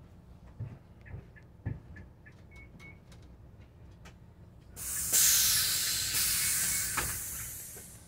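Loud hiss of compressed air from a Greyhound bus's pneumatic system, starting suddenly about five seconds in and fading over about three seconds, over the low rumble of the idling engine.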